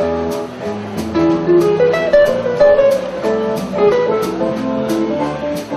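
Live band playing: guitar carrying the tune over bass guitar and drums, with regular drum and cymbal hits.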